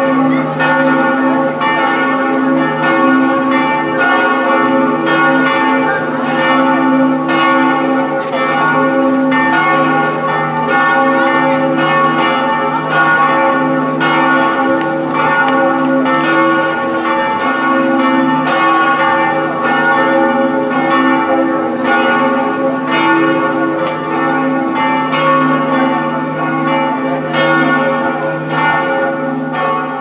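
Several church bells ringing together in a continuous peal, their strokes overlapping so the tones ring on without a break.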